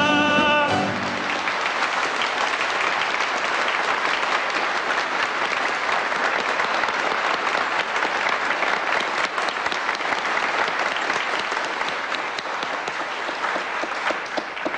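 A song's last held orchestral chord ends less than a second in, giving way to a studio audience applauding: a dense, steady clapping.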